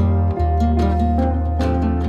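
Instrumental background music of plucked strings, in the manner of an acoustic guitar, with notes struck several times a second over sustained tones and a steady bass.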